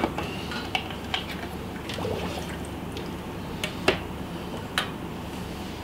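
Plastic aquarium hose and fittings being handled at the tank rim: scattered small clicks and knocks, the loudest about four seconds in. Under them runs the steady trickle of the reef tank's circulating water.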